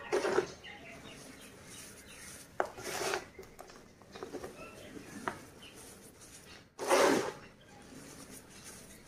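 Hands squeezing and scooping crushed gym chalk powder, giving irregular soft crunching, rubbing bursts with a few sharp crackles. The loudest squeeze comes about seven seconds in.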